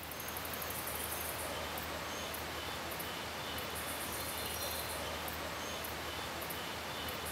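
Jungle ambience: a steady hiss with insects chirping in quick pulses high up and brief bird calls now and then, over a low steady hum.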